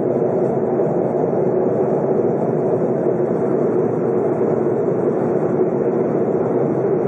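Steady cabin noise of an airliner in cruise flight: engine and airflow noise heard from inside the passenger cabin, an even, unchanging sound centred in the low-middle range.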